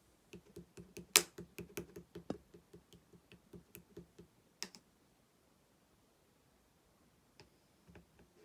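Slime being handled: a quick run of small, sharp clicks and pops, about four or five a second, for the first few seconds, then a couple more near the end.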